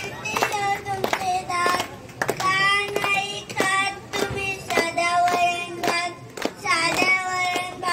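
A young boy singing a song into a microphone, with steady hand claps keeping time.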